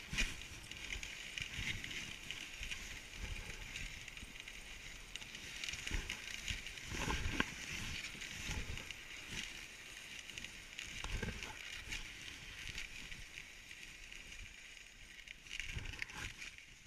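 Dog sled gliding over a snowy trail: a steady hiss from the runners on the snow, with irregular knocks and thumps as the sled bumps along.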